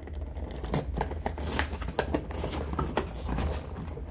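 Plastic shrink-wrap film being torn and peeled off a cardboard box by hand: a run of irregular crinkling crackles.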